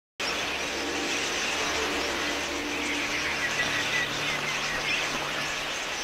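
A large flock of budgerigars chattering: a dense, continuous mass of overlapping high chirps and twitters.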